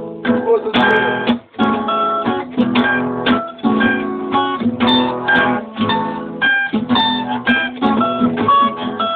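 Acoustic guitar strummed in chords in a steady rhythm, two or three strums a second, played by a beginner of about four weeks.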